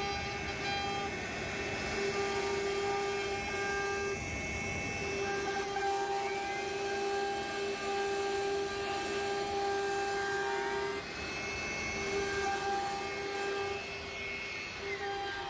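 CNC router spindle cutting an MDF board: a steady high whine over the rasp of the bit carving grooves, the whine fading in and out as the cut changes, with its pitch dipping briefly twice.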